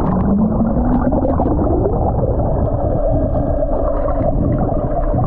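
A boat motor's whine heard under the water through a submerged camera, muffled and dull: it rises in pitch over the first two to three seconds, then holds steady over a rough churning of water.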